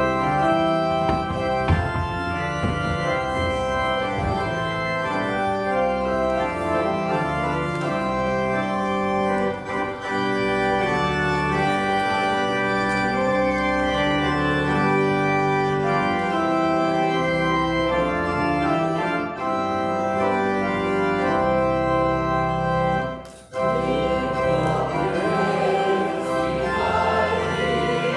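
Church organ playing a hymn in sustained, changing chords. After a brief break about 23 seconds in, the organ starts again and choir voices join in singing the hymn.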